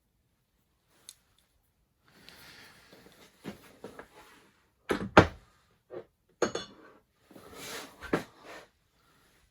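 Small metal machine accessories being handled and set down on a hard surface: shuffling and sliding, then about five sharp knocks and clinks, the loudest about five seconds in.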